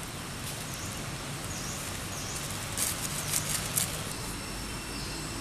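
Short high chirps from birds, a few times with gaps, over a steady outdoor hiss. Near the middle comes a brief burst of dry crackling rustles, the loudest sound, as from dry leaves being disturbed close by.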